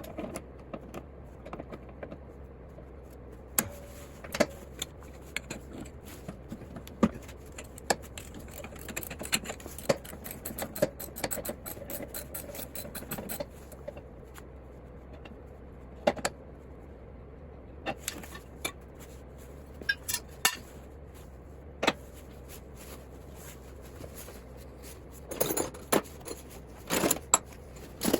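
Hand work on a lawn mower engine: small metal parts and tools clinking, knocking and scraping in scattered, irregular handling sounds, with a few sharper clicks, over a steady low hum.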